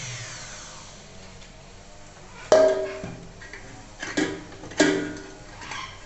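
A rotary tool spinning down, its whine falling in pitch and fading over the first second. Then four separate plucked, guitar-like notes ring out, each struck sharply and left to ring.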